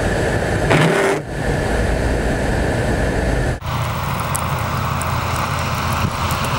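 Steady vehicle engine and road noise, broken by abrupt cuts about one and three and a half seconds in, with a brief louder sound just before the first cut.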